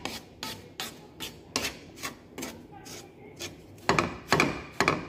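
Wooden spatula scraping and stirring a dry, crumbly toasted-flour polvoron mixture around a frying pan, in quick repeated strokes about two to three a second, louder from about four seconds in.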